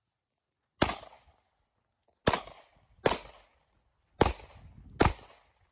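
Five gunshots fired while advancing behind a ballistic shield: one shot, then two pairs of shots, each a sharp crack with a short echoing tail.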